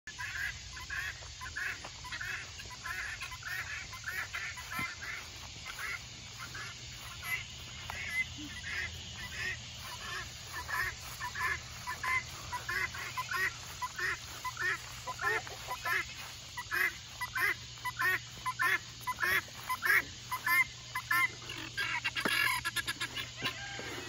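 A flock of guinea fowl calling, short harsh notes repeated two or three times a second in a steady chatter that grows louder toward the end.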